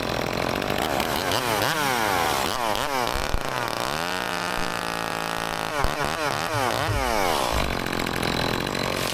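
Chainsaw revved up and down again and again, then held at a steady high speed for about a second and a half in the middle. A couple of sharp knocks come through along the way.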